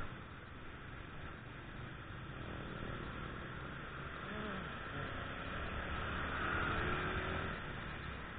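Steady riding noise from a Yamaha Jupiter Z underbone motorcycle moving in traffic, with its single-cylinder four-stroke engine and the wind and road noise blended into one continuous rush. The rush swells a little around six to seven seconds in.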